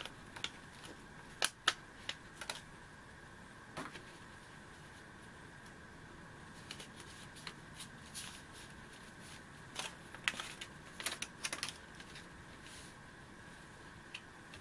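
Paper handling: a sticker-backed paper cutout peeled from its white backing sheet and pressed onto card by hand, giving scattered short crackles and clicks, with a cluster of them about ten to eleven seconds in.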